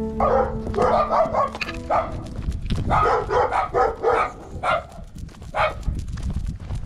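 Small Maltese dog barking and yipping in short, high bursts, several in quick succession at the start and again in the middle, then single barks spaced out.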